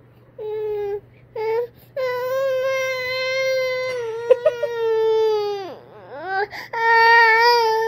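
A baby crying: two short whimpering cries, then a long wailing cry whose pitch drops away as it ends, then another long cry after a brief catch of breath.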